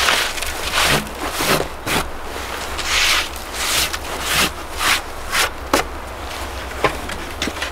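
A mittened hand brushing and rubbing snow off a wooden ski, a dozen or so quick rough strokes about two a second.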